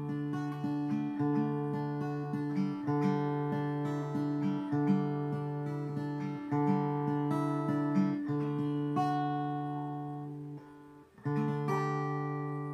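Acoustic guitar played slowly, strummed and picked chords ringing out one after another. About ten seconds in the sound dies away almost to nothing, then a fresh chord is struck.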